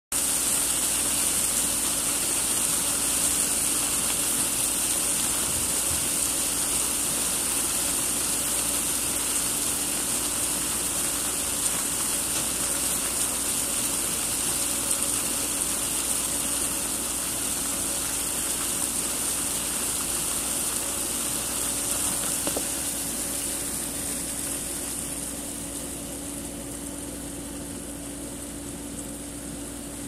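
A mass of darkling beetles crawling and scrabbling over one another in a metal bowl: a dense, steady rustling hiss that eases off somewhat near the end.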